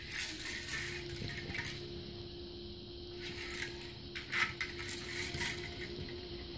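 Dry kibble rattling and clattering inside a hard plastic Buster Cube as a puppy noses and rolls it, in two bouts of irregular rattles with a quieter gap between them.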